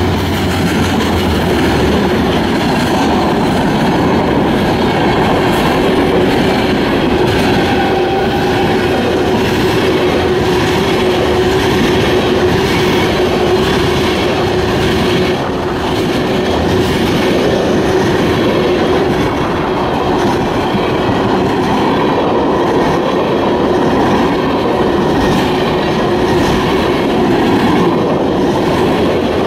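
Freight train cars (covered hoppers and tank cars) rolling steadily past, their wheels rumbling and clacking over the rails, with a steady hum running underneath.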